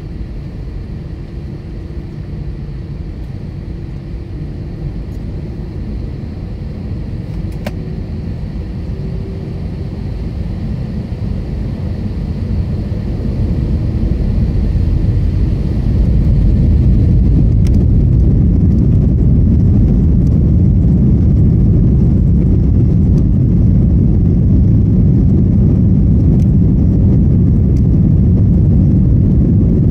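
Airliner engines heard from inside the passenger cabin, spooling up to takeoff power. A low rumble grows steadily louder over the first half, then holds loud and steady from about halfway as the plane accelerates down the runway on its takeoff roll.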